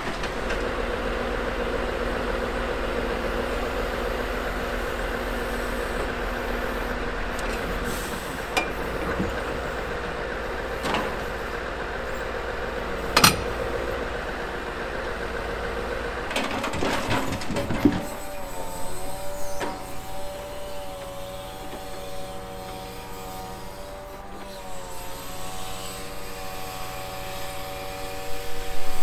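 Scania R580's V8 diesel running steadily while it powers the truck-mounted timber crane. Logs knock now and then as they are set on the load, one sharp knock loudest, and from a little past halfway a steady whine from the working crane wavers slightly in pitch.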